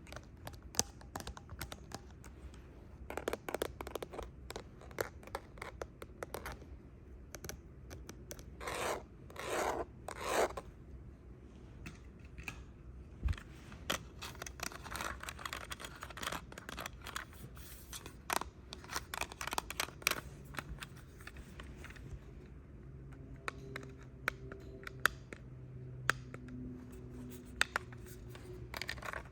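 Quick, irregular tapping and scratching on a small handheld device such as a remote control, with three longer scratching strokes about nine seconds in.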